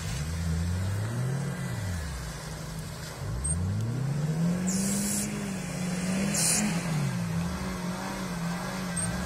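Suzuki Jimny's engine revving up and falling back several times as the 4x4 drives through a muddy pond, over a steady low engine hum.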